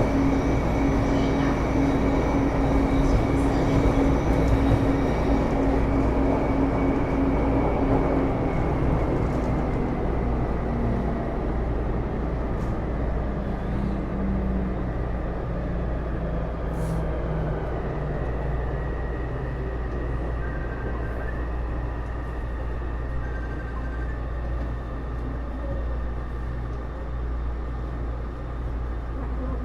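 Interior running sound of a Taipei Metro Series C301 metro car with Bombardier IGBT-VVVF traction: wheel and track rumble with motor and gear tones that fall steadily in pitch as the train slows, the overall sound easing off gradually.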